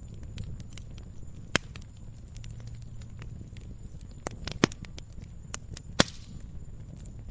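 Wood fire crackling: a low steady rumble under many small snaps, with three louder pops about one and a half, four and a half and six seconds in.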